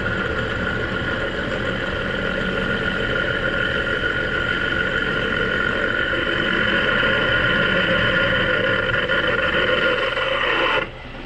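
Metal lathe running steadily with a whine, turning a small steel washer down in size; the sound stops abruptly near the end.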